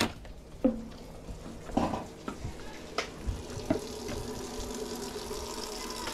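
Kitchen faucet running steadily into a stainless steel sink, the stream splashing in the basin. A few knocks and thumps come in the first couple of seconds.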